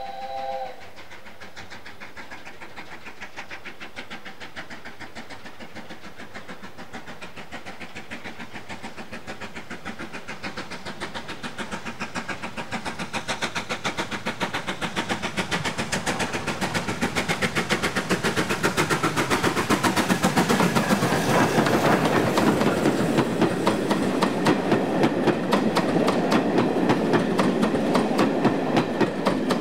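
Steam train passing. A steam whistle cuts off just under a second in. Then come rapid, regular beats of exhaust and wheel clatter, growing louder over about ten seconds and staying loud.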